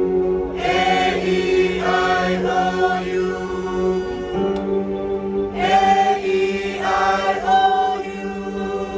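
Choir singing a vowel warm-up exercise, running through the vowels A, E, I, O, U twice over held notes, the pitch stepping up between the two runs.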